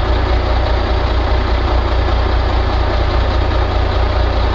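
Excavator's diesel engine running steadily with a deep rumble.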